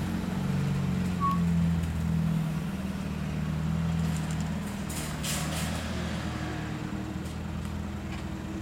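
A large road vehicle's engine running with a low hum that slowly fades away, with a short hiss about five seconds in.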